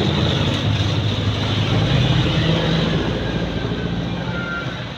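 Road traffic: a motor vehicle's engine running close by with tyre and road noise, fading somewhat near the end.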